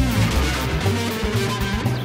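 Instrumental music with an electric guitar played through a Line 6 stack amp over an electronic backing and a steady bass line.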